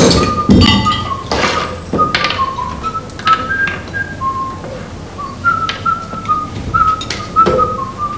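A man whistling a tune in short notes, with sharp knocks and clinks of shoes and small tools being handled; the knocks are loudest in the first couple of seconds.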